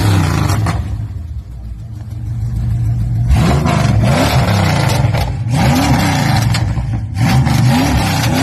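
A 1968 Dodge Charger's V8 revved hard in repeated surges about every two seconds, its pitch climbing and falling each time, while the rear tyres spin in a smoky burnout.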